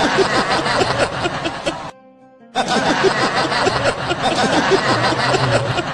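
A group of people laughing hard together, with music underneath. The laughter cuts out for about half a second around two seconds in, leaving only the music, then resumes.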